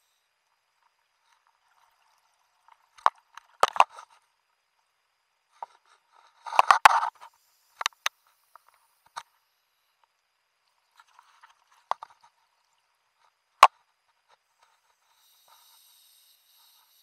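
Underwater, scattered sharp clicks and knocks of scuba gear against the wrist-mounted camera housing, with a short run of rattling taps about halfway through and one loud knock later on.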